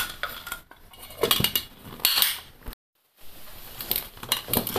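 Clinks and knocks of a stainless steel mixer-grinder jar and its lid being handled on a table, with a brief dead-silent gap a little past halfway.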